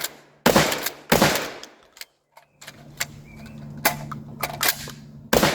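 12-gauge Axor Arms FMP pump-action shotgun firing: two shots just over half a second apart about a second in, then lighter clicks as the action cycles, and one more shot near the end. Each shot has a decaying tail.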